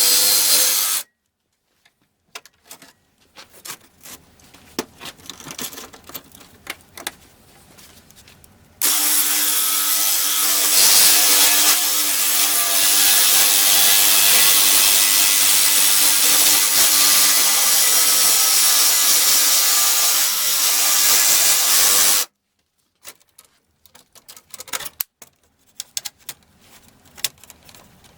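A power tool running steadily in two runs. The first stops abruptly about a second in; the second starts about a third of the way in and runs for about thirteen seconds before cutting off. Between and after the runs come scattered light clicks and knocks of parts and tools being handled.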